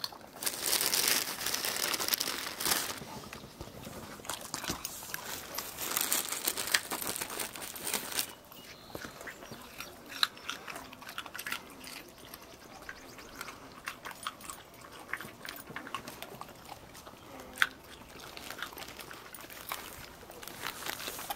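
Dogs biting and crunching raw baby carrots, with crisp cracking chews. The chewing is loudest for the first few seconds and again about six to eight seconds in, then breaks into scattered sharp crunches.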